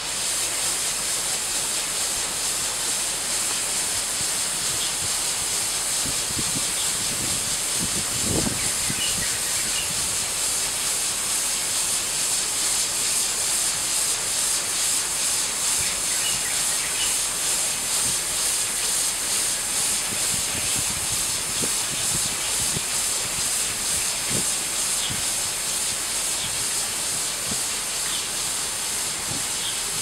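High-pressure spray nozzles on an AA4C AA-360RD touchless car wash arm hiss steadily as they jet water, and then foam, onto a car.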